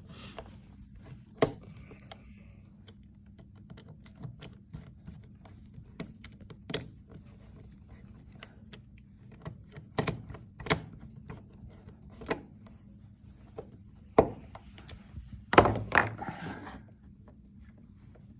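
Irregular small clicks and knocks of a Phillips screwdriver working the terminal screws of a junction box as the wires are screwed in place, with a louder knock and rattle near the end.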